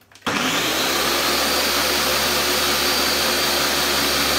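Countertop blender switched on just after the start, running steadily at high speed with a high whine as it blends a cashew cheese mixture.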